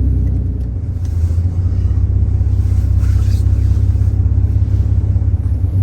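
2009 Dodge Ram Cummins 6.7 L inline-six turbo-diesel pickup driving on the road, a steady low rumble heard from inside the cab; the rumble dips briefly about a second in, then picks up again.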